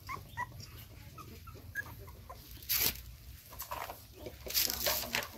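Young puppies whimpering: several short, high squeaks in the first two seconds, with a couple of brief scuffling noises later on.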